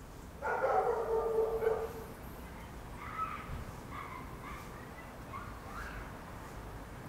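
An animal's call lasting about a second and a half, starting about half a second in, followed by several shorter, quieter calls.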